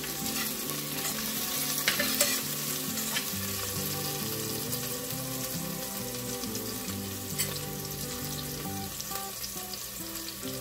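Chopped onions sizzling in hot oil in an open pressure cooker as they fry soft, a steady hiss with a few sharp clicks.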